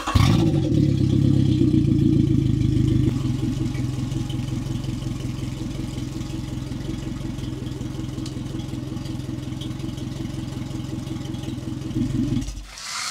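Suzuki four-stroke outboard engine starting and running out of the water on a flush hose, louder for the first three seconds, then settling to a steady idle. It is shut off shortly before the end.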